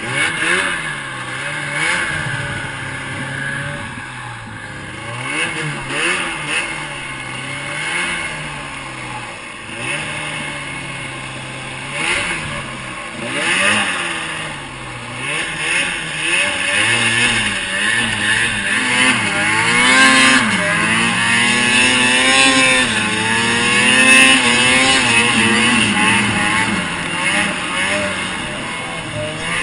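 Supercharged Arctic Cat 800 two-stroke snowmobile engine under throttle in deep snow, its revs rising and falling again and again. From a little past halfway it is held at higher revs and runs louder.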